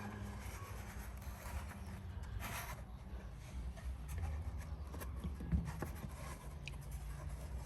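Scratchy scraping and a few light knocks from hands working a native bee hive box, with a longer scrape about two and a half seconds in and the sharpest knock about five and a half seconds in.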